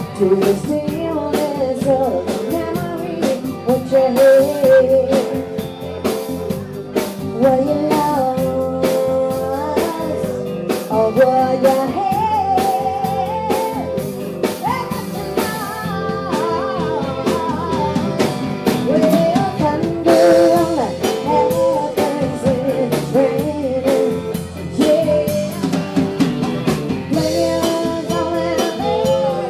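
Live band playing a song: a woman's lead vocal over electric and acoustic guitars and a drum kit.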